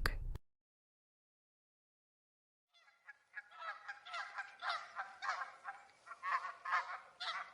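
Goose honking, a run of short repeated honks that starts about three seconds in.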